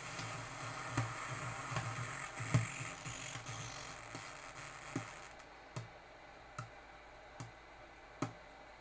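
Right channel of a Peachtree Audio Grand Integrated X1 Class D amplifier putting out hissy, distorted audio that cuts out about five seconds in. A regular tick a little faster than once a second is left, coming from the failing channel while its bulged, out-of-tolerance capacitors are heated with hot air.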